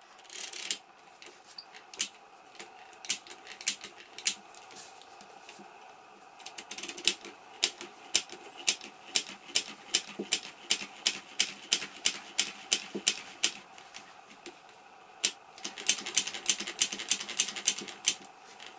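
Carriage mechanism of a Monroe LN160X mechanical calculator being worked by hand at its end knob, sending out a run of sharp metallic clicks. The clicks are scattered at first, then come several a second, with a faster burst near the end. The mechanism has just been oiled and is freeing off after being seized.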